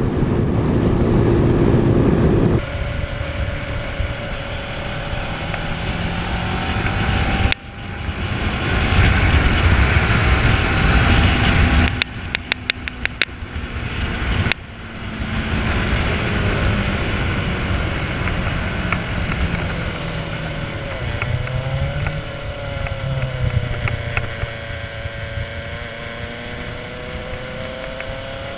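On-board motorcycle riding sound: wind rushing over the microphone and the engine running, its note rising and falling with the revs, across several cut clips. It is first a Suzuki Van Van on a wet road, then a Kawasaki ER-6n parallel twin. A quick run of clicks comes about halfway through.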